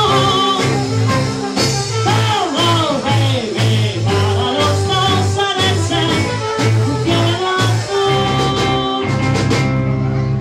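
Live band playing an upbeat 1960s-style number with trombone, electric guitars, bass and drum kit, over a steady bouncing bass line and regular drum beat. About eight seconds in the band moves to long held notes, and the cymbal strokes stop near the end.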